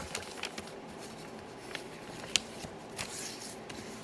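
Light handling noise of plastic LEGO pieces being moved about, with a few sharp clicks, the loudest about two and a half seconds in.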